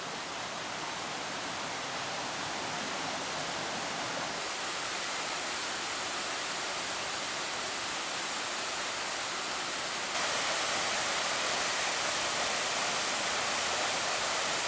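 A small mountain-creek waterfall rushing steadily, a little louder from about ten seconds in.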